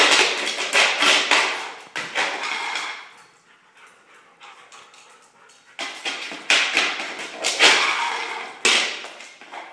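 German Shorthaired Pointer's claws scrabbling on a hard garage floor and a plastic lid clattering and scraping across it as the dog paws and lunges at it. The taps come in two busy spells with a quieter stretch in the middle.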